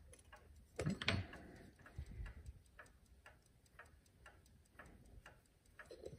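Chelsea ship's strike clock running with a steady, even ticking. A few louder knocks about a second in and low thumps a second later come from the screwdriver and hands working the bezel screws on the brass case.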